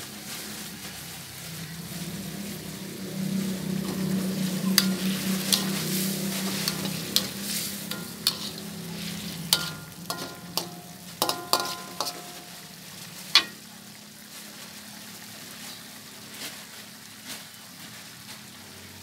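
A metal spoon knocking and scraping against an aluminium wok, about a dozen sharp clinks between about five and thirteen seconds in, some ringing briefly, over the hiss of food cooking on a gas stove. A low steady hum runs through the first half.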